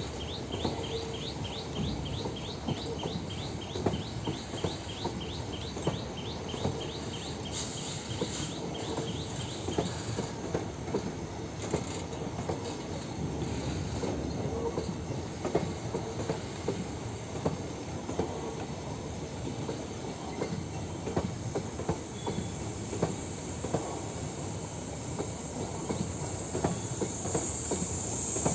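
An Indian Railways NMG wagon rake rolling past at low speed, its wheels clattering over rail joints with a steady rumble. For the first ten seconds or so a rapid, evenly repeating high squeak rides over the rumble, and a hiss swells near the end.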